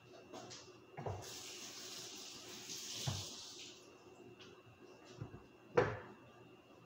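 Knocks and bumps of things being handled on a kitchen counter, the loudest near the end, with a hiss lasting about two and a half seconds in the middle.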